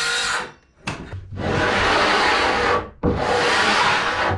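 Plywood being worked with tools: a short burst of a cordless circular saw cutting the panel at the start, then two long rasping strokes over the wood, each about a second and a half.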